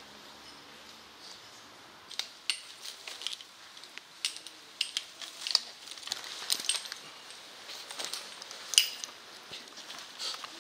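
Metal climbing hardware on a tree climber's rope system, carabiners and rope devices, clinking and clicking at irregular intervals as the gear is handled. The clinks start about two seconds in, with the sharpest one near the end.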